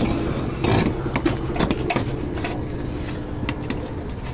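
1981 Chevrolet Malibu Classic engine idling steadily, heard from the driver's seat, with a few light clicks over it.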